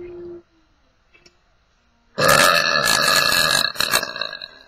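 A person letting out one long, loud burp about two seconds in, lasting nearly two seconds before trailing off.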